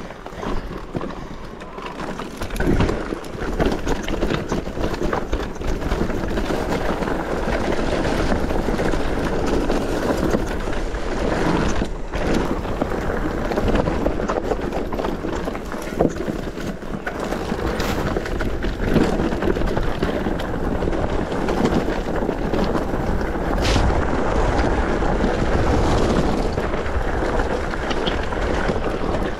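Mountain bike riding down a rocky trail: tyres crunching over stones, with frequent knocks and rattles from the bike, and wind buffeting the microphone.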